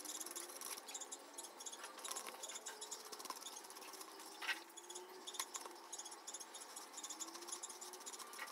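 Crickets chirping steadily, a dense high-pitched pulsing, with a few soft crinkles of paper strips being handled and pressed onto a paper mâché ball, the loudest about halfway through.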